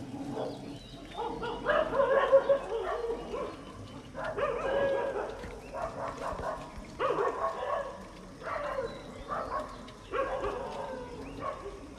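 An animal calling repeatedly, in about six harsh pitched bursts spaced a second or two apart, some nearly two seconds long.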